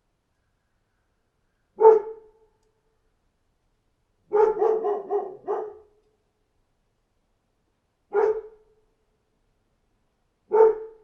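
A dog barking: single barks with silence between, and a quick run of about five barks in the middle.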